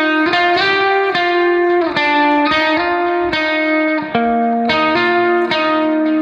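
Background music: a guitar playing a melody of held notes that changes pitch every half second or so.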